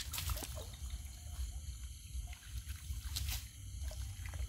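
Water in a ditch sloshing and trickling as it is disturbed, with a short splash right at the start and another about three seconds in.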